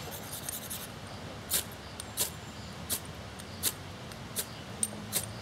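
Ferro rod (fire steel) struck repeatedly with a scraper to throw sparks onto hatchet-shaved wood curls: a short, sharp scrape about every 0.7 s, about seven strokes, starting about a second and a half in. The shavings are not catching because the wood is not dry.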